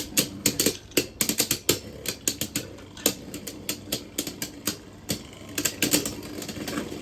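Two Belial Beyblade Burst tops (Perfect Gear and Devil Belial) spinning and clashing in a plastic stadium: rapid, irregular clicks and clacks of the tops striking each other and the stadium walls, thinning a little midway and picking up again near the end.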